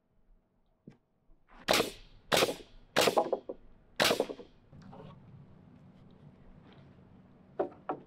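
Nail gun firing four times in quick succession, each shot a sharp crack as it drives a nail into the boards. Two lighter knocks come near the end, and a low steady hum sets in about halfway through.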